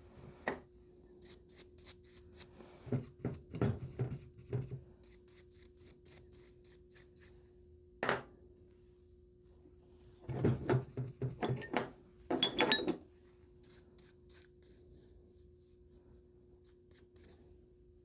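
Bursts of rubbing and scraping with small clicks, as copper pipe and fittings are handled and cleaned. The bursts come in several groups, with quiet gaps between them. A faint steady hum runs underneath.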